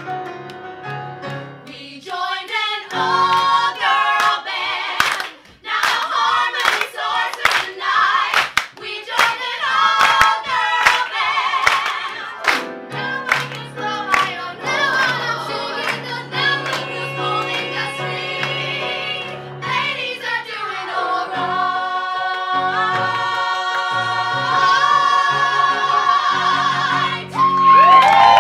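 Group of women singing a show tune in harmony, with sharp percussive hits about twice a second through the first half, building to long held chords near the end.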